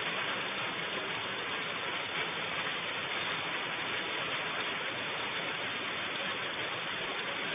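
Steady rain falling, an even hiss heard through a low-quality recording microphone.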